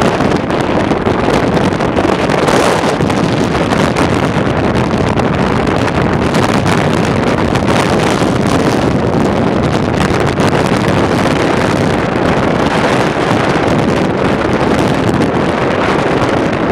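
Steady rush of wind on the microphone of a camera riding on a moving motorcycle, mixed with the motorcycle's engine and road noise.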